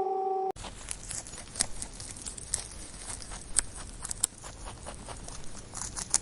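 A dog's long howl ending about half a second in, then a steady rustling hiss with irregular clicks and taps.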